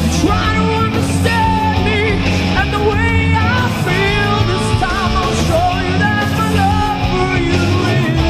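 Rock song recording: electric guitars, bass and drums, with a lead melody that bends and wavers in pitch.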